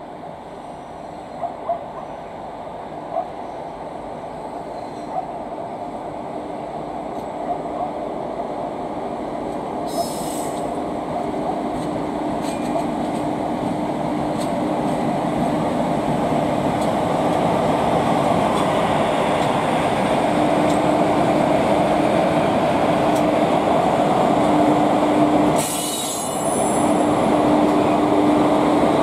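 A pair of Indian Railways electric freight locomotives approaching and running past on the rails, the wheel and rail noise growing steadily louder. A few sharp clicks come at first, and a steady hum comes in as they draw level.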